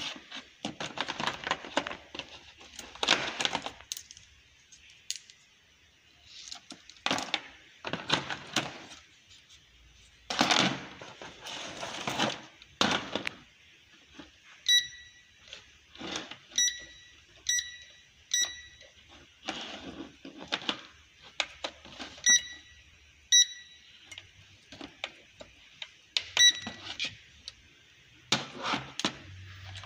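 Hard plastic toy-drone parts and packaging being handled, with irregular clicking and rustling. From about halfway, short high beeps come from the drone's remote controller as its buttons are pressed, singly and in quick runs of three to five.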